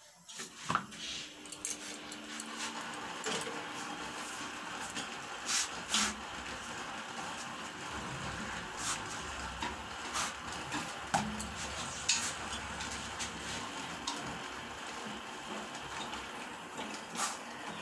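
Roti cooking on an iron tawa over a gas burner turned up to full flame: a steady hiss, with scattered soft taps and scrapes as the roti is laid on and pressed down with a folded cloth.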